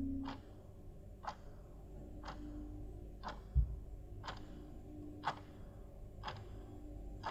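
Steady ticking, one sharp tick about every second, over a faint held tone. A single low thump a little past halfway.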